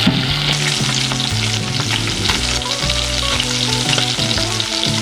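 Sea bass fillets sizzling in hot coconut oil in a frying pan, just turned flesh side down to finish cooking, with steady dense crackling of the spitting fat.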